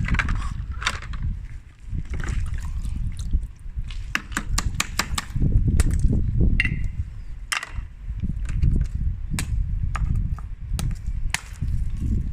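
Ice cubes clicking and knocking against one another and a hard surface, in irregular sharp taps, some in quick runs, over a low rumble of handling.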